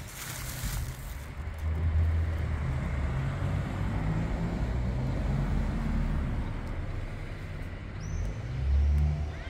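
Traffic noise: a motor vehicle's low rumble that grows louder about two seconds in and swells again near the end, with a bird chirping briefly near the end.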